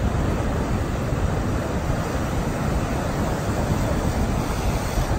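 Sea surf breaking and washing in, a steady rushing noise, with wind buffeting the microphone.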